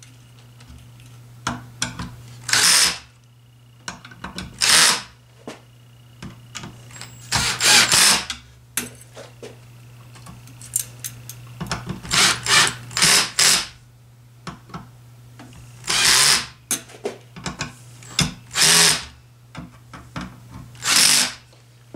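Power screwdriver on a low torque setting, run in about a dozen short bursts as it drives the screws that fasten the ceiling fan's blade irons, each burst about half a second long.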